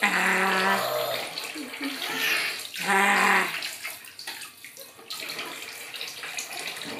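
Bathwater sloshing and trickling in a bathtub as a baby plays with plastic bath toys and a toy water spout. Two drawn-out steady tones, about a second each, sound at the start and again about three seconds in.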